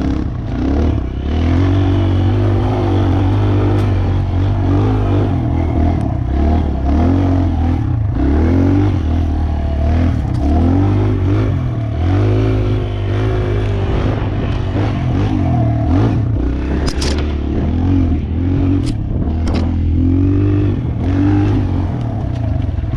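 Small dirt bike engine revving up and down as it is ridden, its pitch rising and falling every second or two, with a few sharp clicks near the end.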